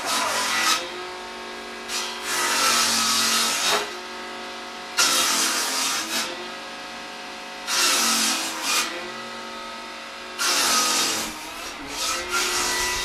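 Circular saw running, its motor humming steadily between cuts, biting into wood in about six separate cuts that each rise into a loud rasping burst and drop back to the idle hum.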